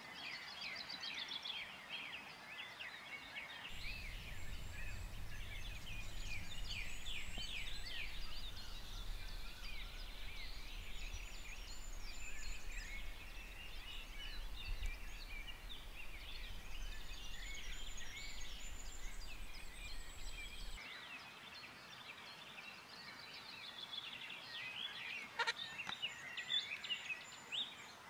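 Songbirds singing together, a steady chorus of many short chirps and trills. Through the middle stretch a low rumble lies under it, and a single sharp click comes near the end.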